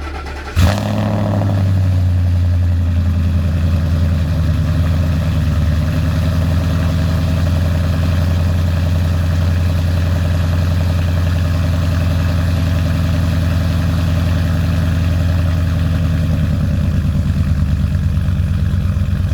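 A Ford F-150 pickup's engine catches with a brief flare about half a second in, then settles into a steady idle.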